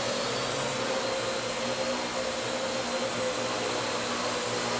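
Parrot AR Drone 2.0 quadcopter hovering: a steady whine of its four geared electric motors and spinning propellers, with the pitch wavering slightly as it manoeuvres.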